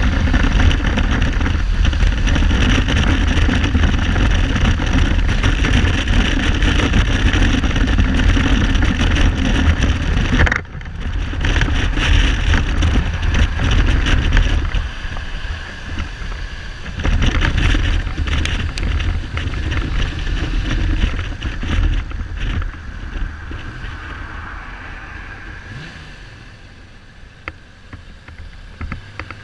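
Kawasaki Z1300 inline-six motorcycle being ridden, its engine mixed with heavy wind rush on the camera, with the engine not running on all cylinders (misfiring). The noise drops suddenly about a third of the way in, picks up again, then fades steadily over the last several seconds, with a few sharp clicks near the end.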